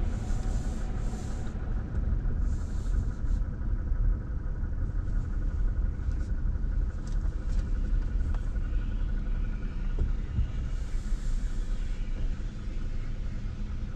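Car driving slowly at low speed, a steady low engine and road rumble. A few short bursts of hiss come over it: near the start, about three seconds in, and about eleven seconds in.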